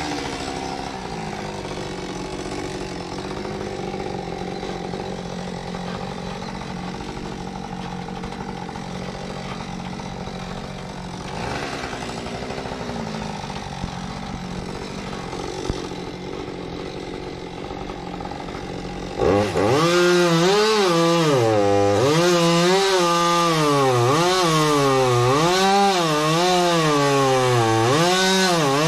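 Chainsaw idling steadily, then revved to full throttle about two-thirds of the way through and cutting wood. Its pitch dips and rises over and over as the chain bites and frees.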